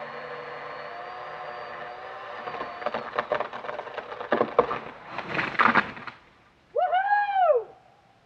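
A tall conifer being felled: over a steady engine drone, the wood cracks and splinters for a few seconds, then the tree crashes down through branches onto the ground. Just after the fall comes one short rising-and-falling whoop.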